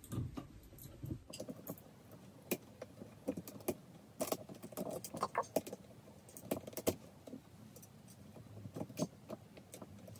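Irregular small clicks and rattles of plastic parts being handled and snapped together on a tripod head, busiest about halfway through.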